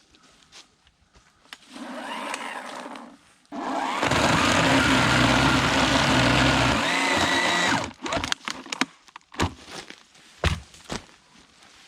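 Electric chainsaw running briefly, then cutting into wood with a steady, loud whine for about four seconds before stopping suddenly. Scattered sharp knocks and cracks of wood follow.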